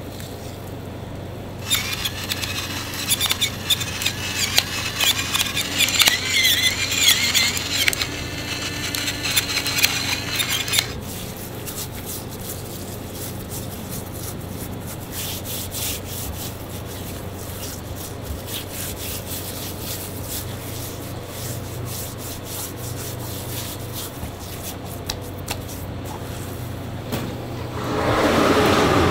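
Metal oven racks scraping and squealing as tied pork roasts are shifted inside a commercial oven, from about two seconds in to about eleven, over a steady low hum. After that come quieter clicks and knocks, and near the end a squeeze bottle squirts mayonnaise into a steel bowl in a short loud burst.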